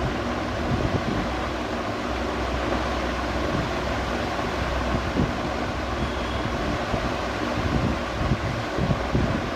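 Ceiling fan running: a steady rush of moving air over a low, constant hum, with uneven low buffeting of the air against the microphone.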